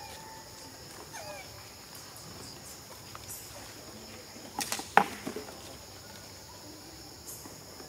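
Forest ambience with a steady, high-pitched insect drone. A few short squeaks come about a second in. Just before five seconds in there is a quick run of sharp clicks or knocks, the loudest moment.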